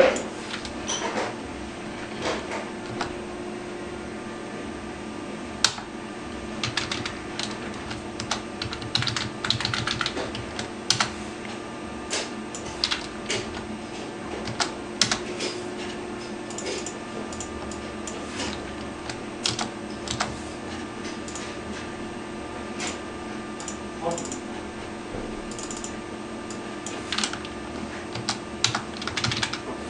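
Irregular clicking of computer keys, in short runs and single strokes, over a steady low hum.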